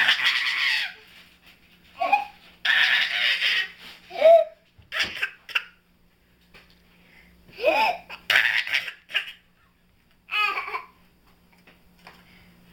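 A baby laughing in loud, breathy bursts, trading turns with a toddler's short pretend-hiccup yelps, several times over.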